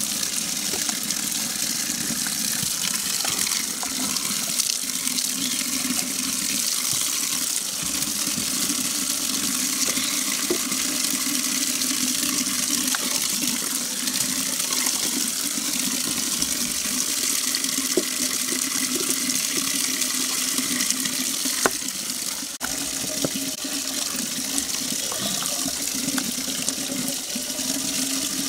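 A steady stream of tap water pouring and splashing into a copper pot full of water, as leafy greens are swished and rinsed by hand in it.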